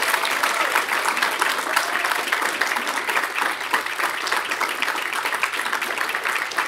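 Audience applauding, a dense steady clatter of many hands clapping.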